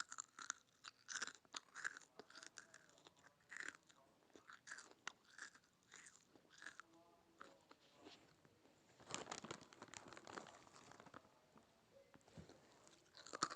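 Potato chips being crunched and chewed in the mouth: a string of crisp crunches, roughly one or two a second, with a denser run of crunching about nine seconds in.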